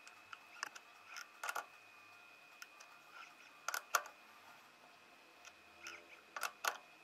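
Chuck key working in a three-jaw lathe chuck as it is tightened onto an aluminium plug: scattered metallic clicks and knocks, several in quick clusters, the loudest about four seconds in.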